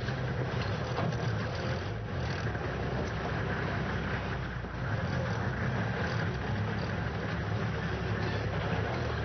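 Motor vehicle running steadily: a continuous low engine hum with road noise.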